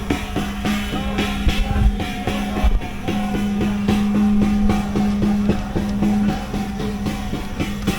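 Music with a quick, steady drumbeat over a held low tone.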